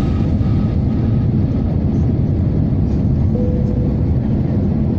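Steady low rumble of an airliner's jet engines and airflow, heard inside the passenger cabin.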